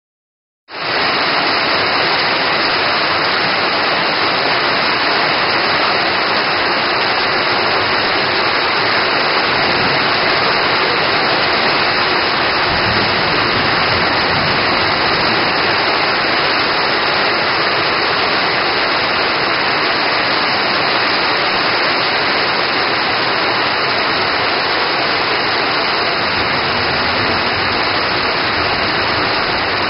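Heavy rain pouring steadily, a dense even hiss with no let-up.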